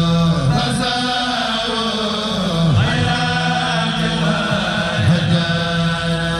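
A Mouride kourel, a group of male chanters, singing a khassaide (religious poem) in unison chant on long held notes.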